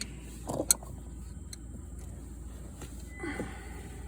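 A few sharp metal clicks of a wrench on the ATV's axle hardware, the loudest about a second in, over a steady low hum.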